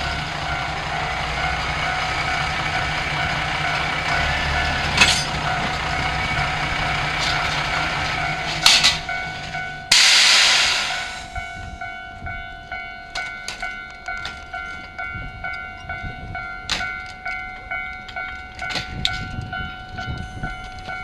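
NT100 diesel railcars idling in a steady drone while being coupled, with a sharp clank about five seconds in and more clanks just before a loud hiss of air at about ten seconds that fades away. The engine drone then stops and only scattered light clicks are left.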